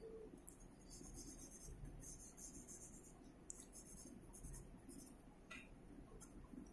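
Graphite pencil scratching faintly on drawing paper in a series of short, irregular strokes with brief pauses between them.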